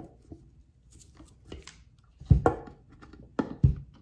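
Handling noise from an Optispark distributor being worked on at a bench: a few light clicks, then a louder dull knock about halfway through and two more close together near the end.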